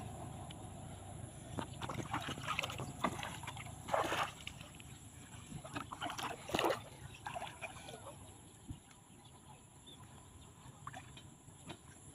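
Shallow water splashing and sloshing as a person wades through a flooded paddy and moves a plastic bucket through the water, with scattered short splashes and two louder ones about four and six and a half seconds in.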